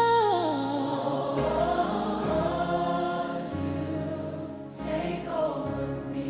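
Slow worship ballad music between sung lines: a held sung note glides down and ends just after the start, then sustained chords play over a slowly changing bass line, with soft wordless choir-like voices.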